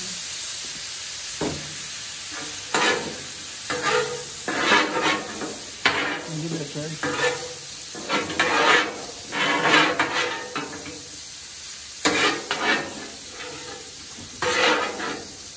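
Metal spatulas scraping and turning diced chicken and cauliflower on the steel plate of a Blackstone flat-top griddle, in quick irregular strokes, over a steady sizzle of food frying on the hot plate.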